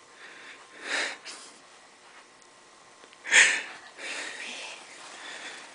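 Two short sniffs through the nose, one about a second in and a louder one near the middle, with faint breathy hiss between.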